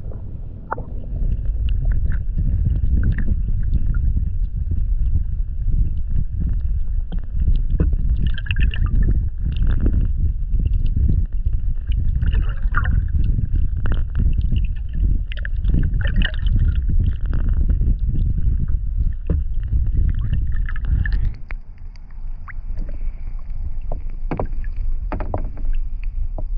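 Kayak being paddled: paddle splashes and water slapping the hull over a heavy low rumble. The sound changes abruptly about 21 seconds in.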